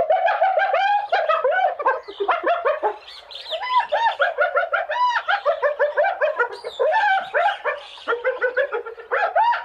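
A chorus of many animals calling at once: rapid, overlapping short yelping calls that rise and fall in pitch.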